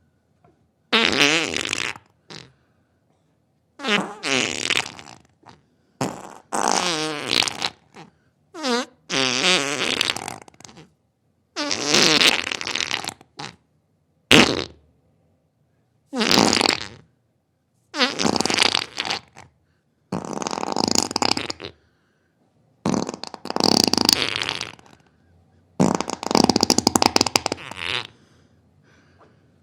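Diarrhoea sound effect: a series of about a dozen wet, rasping flatulence blasts, each half a second to two seconds long with a wavering pitch, separated by short pauses.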